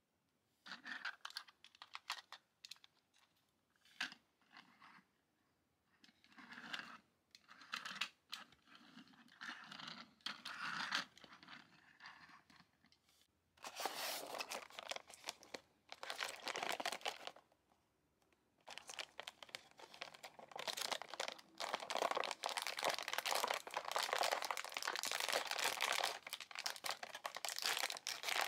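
Small plastic toy pieces handled with light clicks and taps, then plastic toy packaging being opened: crinkling and tearing, first in a short spell about 14 seconds in, then continuously from about 19 seconds on.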